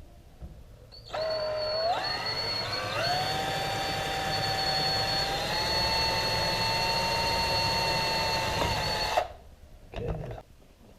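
A small power tool's electric motor starts about a second in, climbs in pitch in two steps, runs steadily for about eight seconds, then cuts off suddenly. A short scraping or handling noise follows about a second later.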